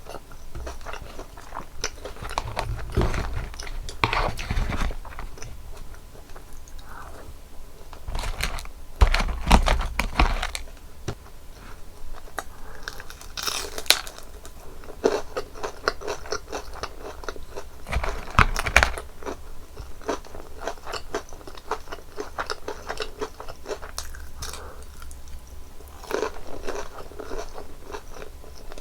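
Close-miked crunching and chewing of crispy breaded, fried cheese pork cutlet, with a steady run of crisp crackles. Louder crunching bites come three times, about three, nine and eighteen seconds in.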